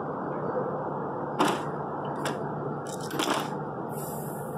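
A few sharp clicks and knocks, roughly a second apart, over a steady low background hum, with a short hiss near the end.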